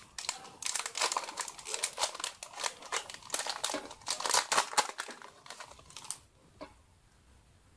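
Foil wrapper of a Yu-Gi-Oh! booster pack crinkling and tearing as it is opened, a dense run of crackles that stops about five and a half seconds in.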